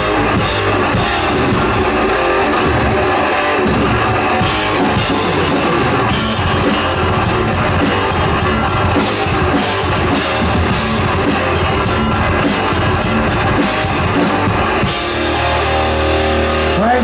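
Thrash metal band playing live: electric guitars, bass and drum kit through an instrumental passage of the song, loud and dense. About fifteen seconds in the drumming drops away and a final low chord is left ringing.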